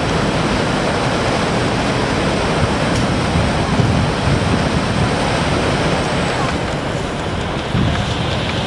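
Griffon 12000TD hovercraft running on its cushion on the pad: a steady, loud noise of its lift fans and propellers over a low rumble, its higher part easing off about six and a half seconds in.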